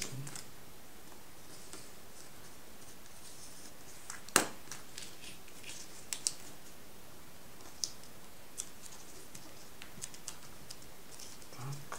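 Fingers folding and pressing a small piece of metallised paper: quiet handling with a few sharp crackles, the loudest about four seconds in and several smaller ones a couple of seconds later.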